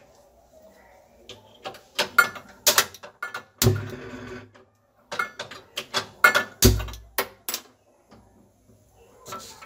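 Handheld spark gas lighter and stove knob clicking repeatedly, in quick bursts, to light a gas stove burner. There are two dull thumps among the clicks, about a third and two thirds of the way through.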